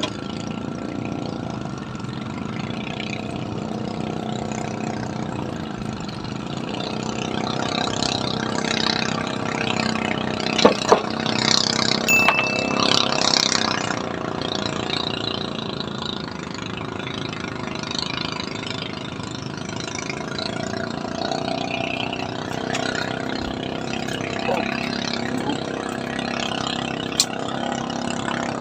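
An engine running steadily with an even hum, a little louder for a few seconds in the middle, with a few sharp clicks over it.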